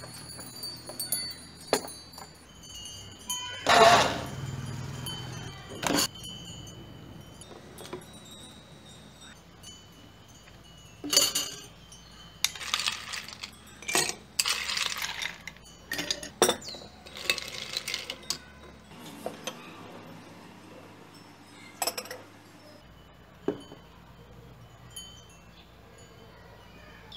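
Ice cubes clinking against glass as they are spooned from a glass bowl into a drinking glass, in scattered clusters of bright clinks, with knocks of glassware and utensils and a louder clatter about four seconds in.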